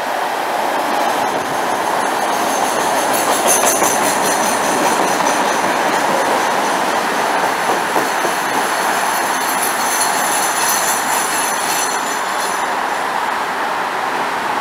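Chicago CTA 'L' rapid-transit train pulling into a station platform and running close past, slowing to a stop: a steady rumble of wheels on rail, with high, thin squealing tones from the wheels and brakes that start about a second in and die away near the end.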